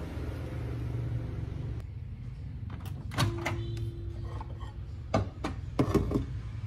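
Microwave oven door and its surrounds being handled: a run of sharp clicks and knocks from about three seconds in, after a couple of seconds of steady low hum.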